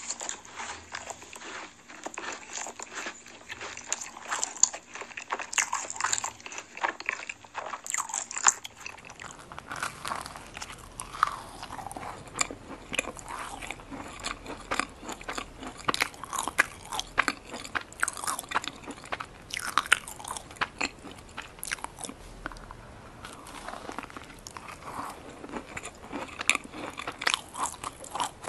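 Close-miked eating of macarons: crisp shells crunching under bites, then chewing, with many quick irregular crackles and clicks. About eight seconds in it switches to a different eater's recording with the same biting and chewing.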